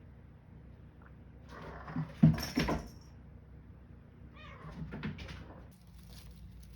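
Young cat meowing twice: a loud call about two seconds in and a softer one about four and a half seconds in.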